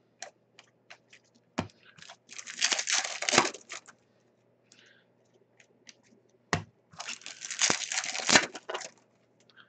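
Hockey card pack wrappers being torn open by hand, twice, each rip lasting a second or two, with light clicks and taps of handled cards in between.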